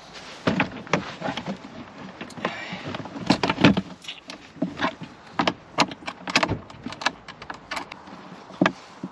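Irregular clicks and knocks of plastic car interior trim and a T20 Torx screwdriver as a dashboard panel is fitted back and screwed in, the loudest knocks a little over three seconds in.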